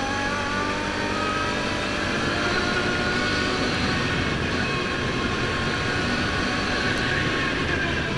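Can-Am ATV engine running as the quad cruises along a dirt road, its pitch creeping up over the first few seconds and then holding steady, over a steady rush of road and wind noise.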